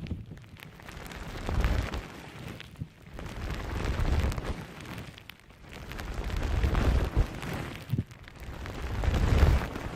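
Soft squishy object squeezed and pressed against a close microphone, a crackly, squishing rustle that swells and fades in slow strokes about every two and a half seconds.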